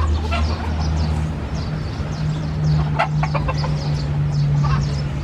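Chickens clucking, with many short high calls, over a steady low hum. A quick run of sharp clicks comes about three seconds in.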